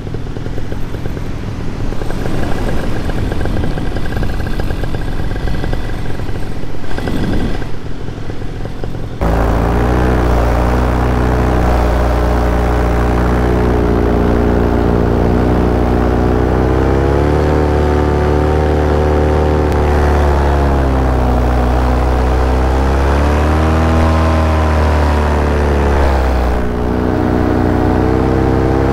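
Small aircraft motor in flight: a rough rush of engine and wind, then about nine seconds in an abrupt change to a steady engine drone whose pitch rises and falls gently.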